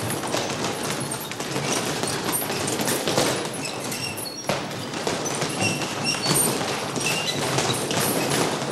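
Boxing-gym training: gloved punches landing on punching bags and hanging bags in a dense, continuous run of quick thumps and slaps.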